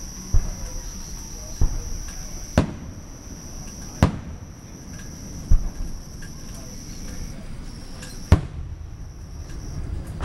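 Aerial fireworks shells bursting: six separate bangs at uneven intervals, some deep thuds and some sharper cracks, over a steady high-pitched trill.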